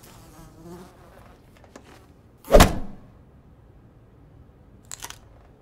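A housefly buzzing faintly, then a single loud thump about two and a half seconds in.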